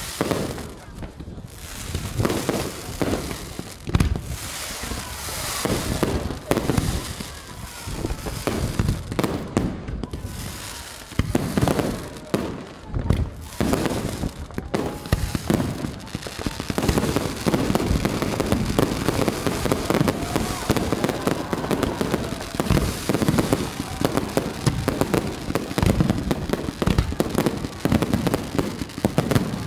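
Fireworks display: shells bursting in bangs, a few seconds apart at first, then building after about halfway into a dense, unbroken barrage of bangs and crackling.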